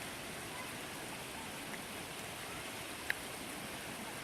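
Steady, even hiss of water, rain-like, with a single sharp click about three seconds in.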